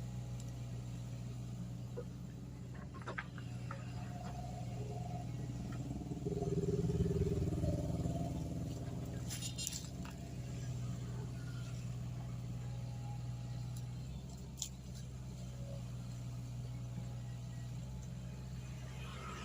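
Mini excavator's diesel engine running steadily, rising in level for about two seconds around six seconds in as it works under load, with a few short sharp knocks.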